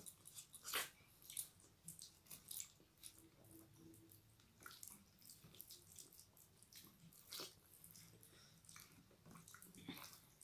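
Fingers mixing and mashing wet, starchy rice on steel plates: quiet squelching with scattered light clicks and taps, the loudest about a second in and again past the middle.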